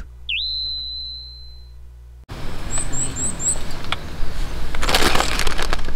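A single chime sound effect: one clear tone that dips briefly, then holds and fades out over about two seconds. It then gives way to open-air background noise with four quick high chirps and faint voices.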